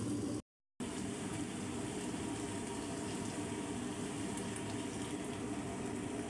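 Chicken pieces frying in a pan, a steady sizzle over a low hum, cut by a brief moment of silence about half a second in.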